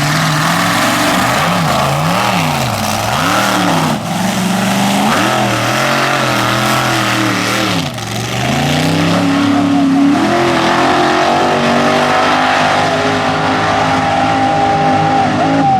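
Mega truck engine revving in a series of blips, about five quick rises and falls, then climbing from about nine seconds in to high revs held, slowly rising, under full throttle.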